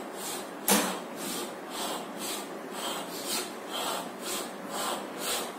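Chalk on a chalkboard drawing a zigzag line: a sharp tap as the chalk meets the board less than a second in, then short scratchy strokes, about two or three a second, one for each leg of the zigzag.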